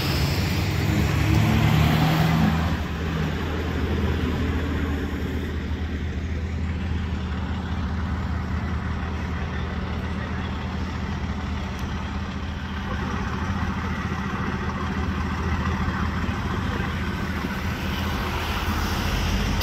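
Vehicle engines idling, a steady low hum, louder for the first three seconds or so.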